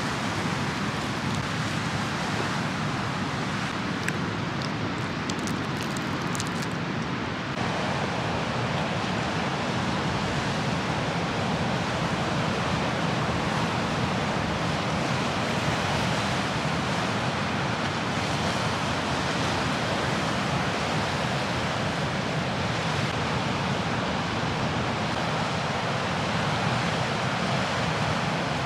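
Steady rush of ocean surf breaking on a reef, mixed with wind noise on the microphone.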